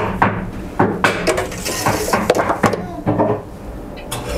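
Metal freeze-dryer trays clattering and clanking as they are slid into a Harvest Right home freeze dryer's chamber, a quick run of sharp knocks and scrapes.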